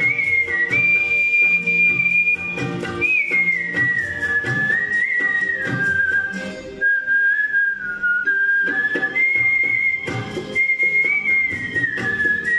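A man whistling a Hindi film song melody over an instrumental backing track with a steady beat. The whistled line moves between long held notes with short glides from one pitch to the next.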